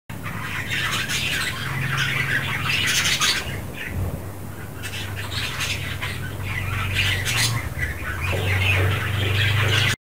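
Budgerigars chattering: a steady run of warbles and short chirps, broken by several sharp squawks. A low steady hum runs underneath.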